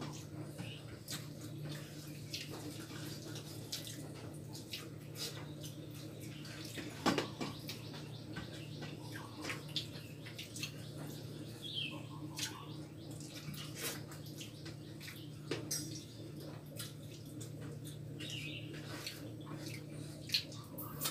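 Eating sounds: fingers mixing rice on steel plates and chewing, heard as scattered small clicks and wet smacks over a steady low hum.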